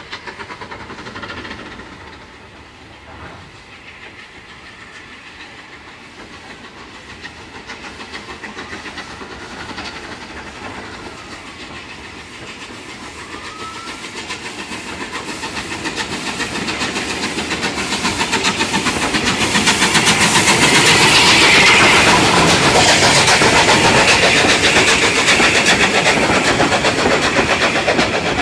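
SR unrebuilt Battle of Britain Pacific No. 34072, a three-cylinder Bulleid steam locomotive, working a train past on the move. Its exhaust and the rolling of its coaches on the rails build up to loud, then stay loud as the train goes by.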